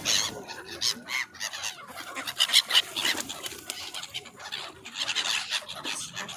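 A flock of waterbirds calling: many short calls in quick, overlapping succession.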